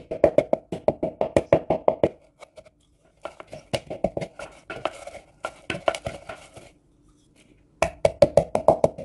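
Wooden pestle pounding coriander seeds and candlenuts in a plastic bowl: rapid thuds about six a second. The pounding stops about two seconds in, comes back softer with some grinding scrape, stops again near seven seconds, then resumes fast near the end.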